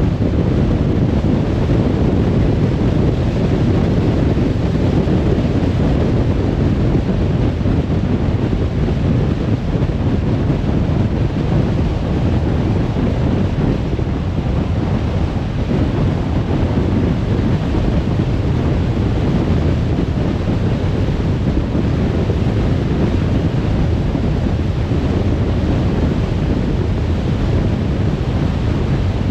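Steady road and wind noise of a car driving at motorway speed: a deep, even rush of tyres and air with no engine note standing out.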